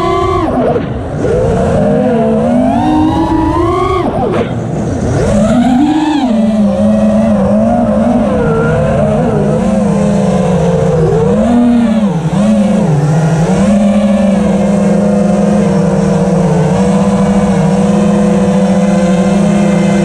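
Brushless motors and three-blade 5-inch props of an ImpulseRC Reverb FPV quadcopter, heard from onboard: a loud buzzing whine whose pitch rises and falls sharply with the throttle in the first few seconds and again briefly in the middle, then holds fairly steady through the second half.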